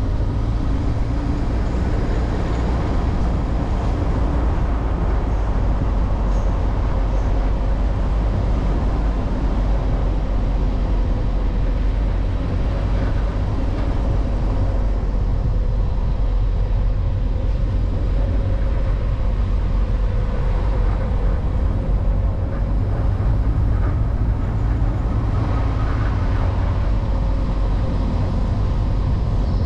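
A vehicle on the move: a steady low rumble of road and wind noise, with a faint engine tone that wavers slightly in pitch.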